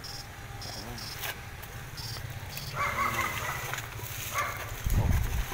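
Steady low electric hum of an electrofishing shocker, with short high beeps repeating in the first few seconds and a few heavy low thumps near the end.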